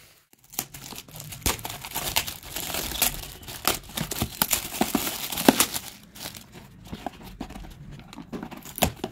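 Metallic foil gift wrap being torn and crumpled off a box, a dense crackling rustle. From about six seconds in it thins to lighter handling of the cardboard box beneath, with a sharp click near the end.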